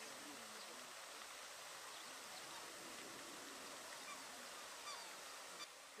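Faint steady hiss, with faint low wavering tones over it.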